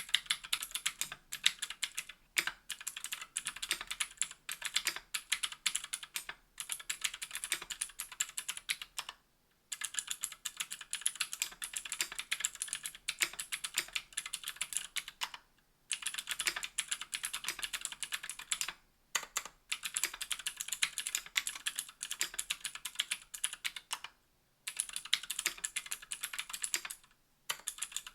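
Fast typing on a KBDfans Tofu60 aluminium mechanical keyboard with stock Gateron Green clicky switches on an aluminium plate and GMK keycaps. Each keystroke gives a sharp, bright click, in runs broken by a few short pauses.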